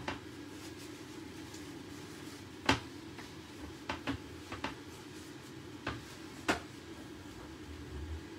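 Kitchen handling sounds: about seven sharp clicks and knocks of utensils against a ceramic plate, spread through, the loudest a little under three seconds in, over a steady low hum.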